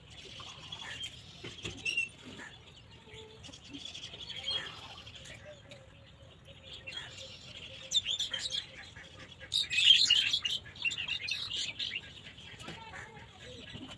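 Pencil scratching on paper in short, irregular strokes while sketching, loudest about ten seconds in.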